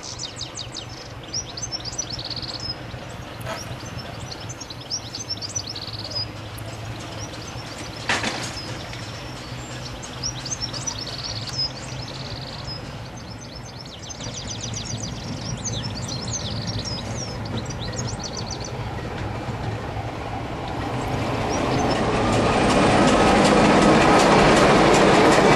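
Class 24 diesel locomotive's Sulzer six-cylinder engine running steadily as it approaches at low speed, with birds chirping over it. In the last few seconds the engine and wheels grow much louder as the locomotive passes close by.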